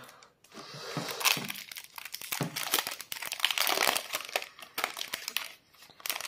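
Foil Yu-Gi-Oh booster pack wrapper crinkling and crackling as it is torn open and handled by hand, with a short louder rustle near the end.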